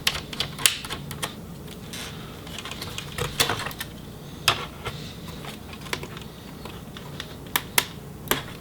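Irregular small clicks and taps of a screwdriver and small parts on a laptop's plastic and metal chassis while the screws holding a cooling fan are removed. A faint low steady hum runs underneath.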